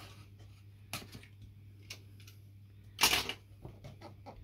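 Utility knife slitting the tape seals on a cardboard box: a few light clicks and cuts, then one louder, brief crackle about three seconds in.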